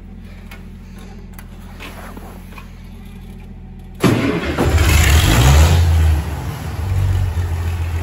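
International 826 tractor engine started cold in deep frost, after a night on a 2500-watt block heater. A low steady hum comes first. About halfway through the engine catches abruptly and runs loud and uneven for a couple of seconds, then settles into a steady idle.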